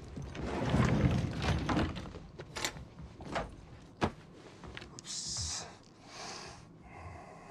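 Film sound effects in a train washroom: a door sliding and a low thud, then a few sharp clicks and a soft hiss.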